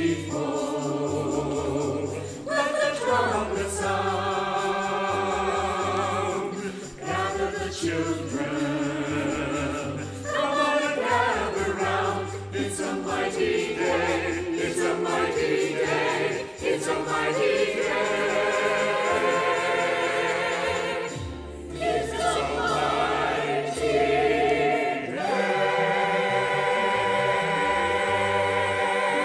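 Mixed choir of men's and women's voices singing an anthem with piano accompaniment, swelling in the middle and ending on a long held chord in the last few seconds.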